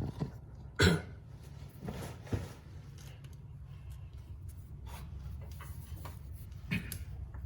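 A few short sharp sounds over a steady low hum: a loud one about a second in, a softer one after about two seconds and another near the end.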